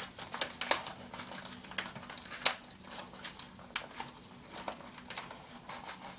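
Packaging being handled and unwrapped by hand: crinkling and rustling with scattered light taps and clicks, the sharpest one about two and a half seconds in.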